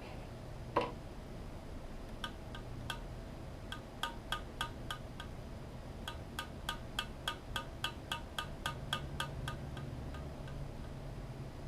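Light, ringing ticks repeating about three times a second, getting denser after the first few seconds, over a low steady hum. A single short click with a falling ring comes about a second in.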